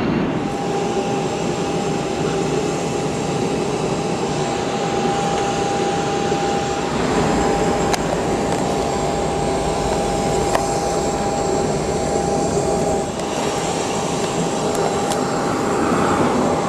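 Steady mechanical noise with a constant whine and a lower hum, changing slightly about thirteen seconds in.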